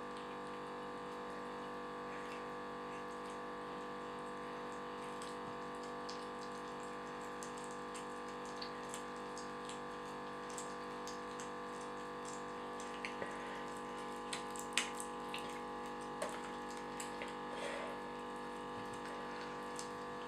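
Abyssinian kittens chewing and crunching raw chicken heads: scattered small clicks and crunches, more frequent in the second half, over a steady background hum.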